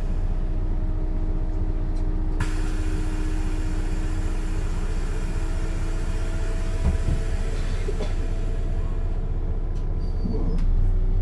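A 1996 Setra S 315 UL bus running, its diesel engine and drivetrain giving a steady low rumble with a few steady tones. There is a sharp click about two seconds in, and the sound grows a little louder near the end.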